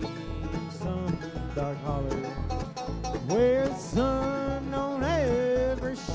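Bluegrass band playing live: banjo, upright bass, acoustic guitar and mandolin, with the bass on a steady beat under quick plucked notes. From about three seconds in, a louder melody line of long held notes that slide up and down in pitch comes in on top.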